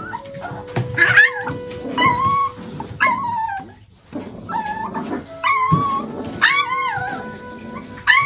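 Micro-teacup toy poodle puppy shrieking for its food: a string of shrill, high-pitched cries that bend in pitch, about one a second.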